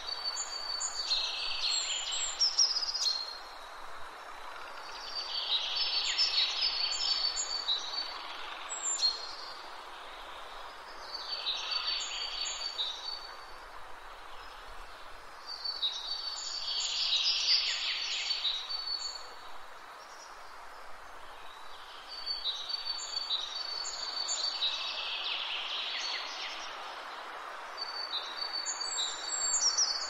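A songbird singing the same short, busy song phrase over and over, about every five seconds, each phrase lasting two to three seconds, over a steady hiss of outdoor background noise.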